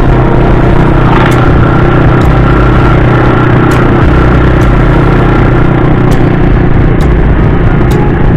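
An engine running steadily close by, a constant loud hum with a few light clicks.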